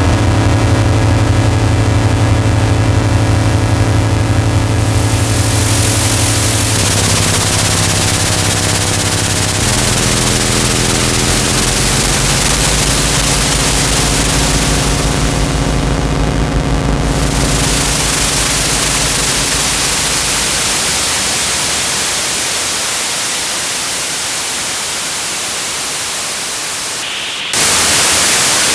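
Roland AIRA Compact S-1 synthesizer playing harsh noise: a low droning tone that steps to new pitches a few times under a thick wash of hiss. The drone fades away about two-thirds through, leaving only the hiss, which jumps suddenly to loud, bright white noise near the end.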